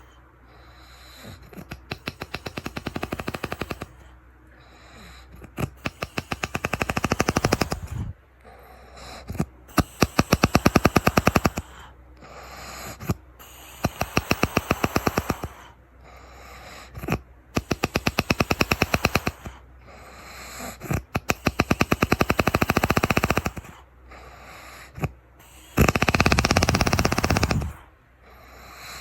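A man snoring heavily, each breath a rapid rattling flutter lasting a second or two, with irregular quieter gaps between the snores.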